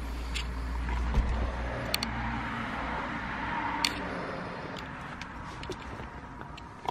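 Handling and rustling noise with a low rumble that fades after about two seconds, and a few light clicks, the sharpest about four seconds in.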